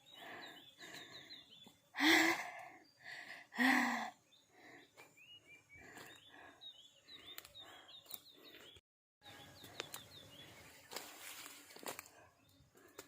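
Small birds chirping over and over in the background, with two loud breathy exhales from a person about two and four seconds in, and a few light clicks and rustles later.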